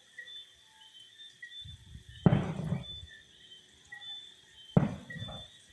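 Two fireworks going off, sharp bangs about two and a half seconds apart, each fading quickly, over crickets chirping steadily.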